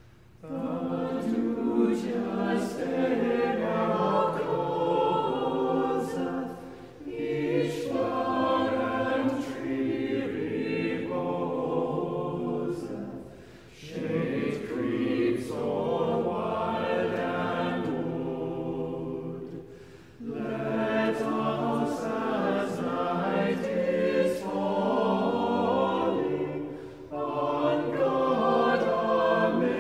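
A cappella choir singing an evening chant or hymn in five phrases, each about six seconds long, with short breaks for breath between them.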